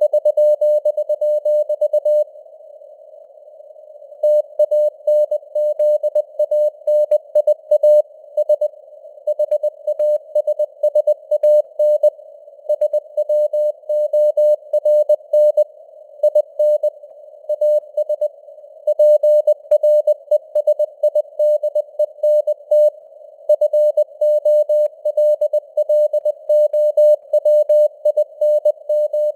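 Morse code (CW) sent at 20 words per minute as a single tone of about 600 Hz keyed into dots and dashes, inside a narrow band of simulated radio-receiver hiss. A gap of about two seconds comes a couple of seconds in, then the keying resumes.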